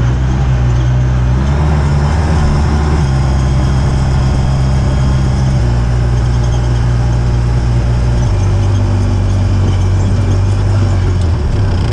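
Engine of a side-by-side 4x4 utility vehicle running steadily as it drives along a sandy dirt track, its low drone dropping in pitch in steps over the second half as the throttle eases.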